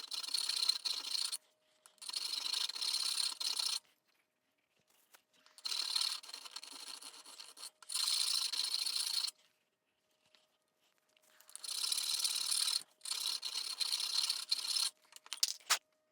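Lathe cutting tool scraping into a spinning brass disc in repeated passes, each a rasping cut of about one and a half to two seconds with short pauses between, as the tool is fed in and backed off to cut a hole. A faint steady hum from the lathe runs underneath.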